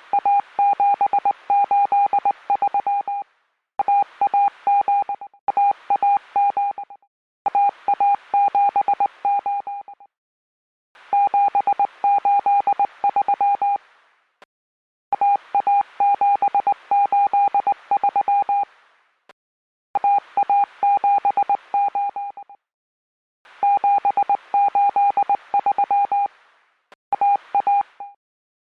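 Morse code sent as a steady mid-pitched beeping tone, keyed rapidly into short and long elements, in runs of a few seconds separated by short pauses.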